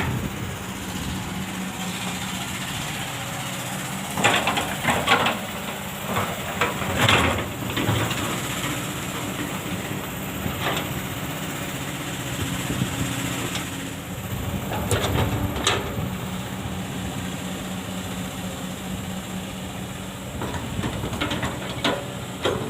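Kobelco SK200 hydraulic excavator's diesel engine running steadily under work, with a few short knocks from the machine about four, seven, eleven and fifteen seconds in.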